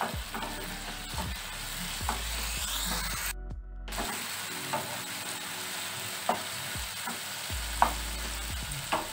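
Chopped onion and tomato frying in oil in a nonstick pan, a steady sizzle, with a wooden spatula stirring and scraping against the pan now and then in short knocks. The tomatoes are already cooked down soft.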